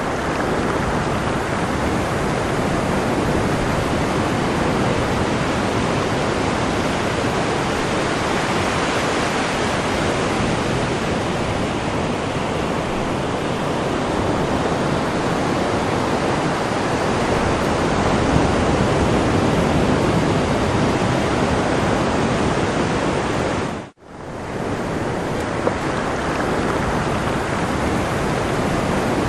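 Steady rushing of sea waves on a shore, swelling a little past the middle; it cuts out abruptly for a moment about 24 seconds in and resumes.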